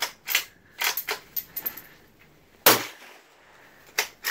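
Sharp metallic clicks of the bolt being worked on a suppressed Ruger American 7.62x39 bolt-action rifle, several in quick succession in the first second and a half. A single loud gunshot comes a little past halfway, and two more clicks follow near the end.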